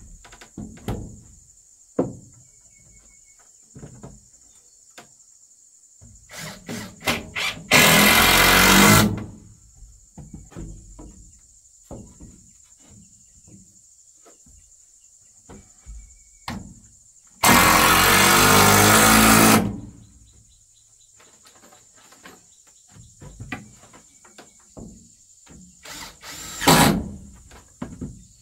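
Power drill running in two bursts of about two seconds each, with short knocks and taps of wood being handled in between.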